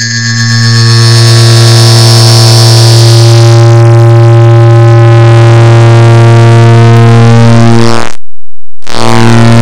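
Clock ticking sped up so far that the ticks have merged into one loud, steady low buzz with many overtones. It cuts out for about half a second near the end and then comes back.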